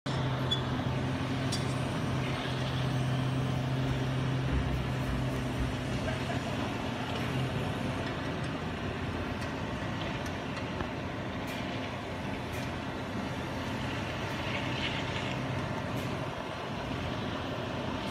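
Heavy diesel machinery engine running steadily at idle, a constant low drone, with a few faint clicks and knocks.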